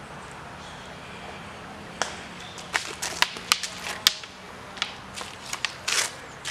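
Longswords clacking together in a fast sparring exchange: a run of sharp, short cracks of blade striking blade starting about two seconds in, the loudest in the middle, with a quick cluster near the end.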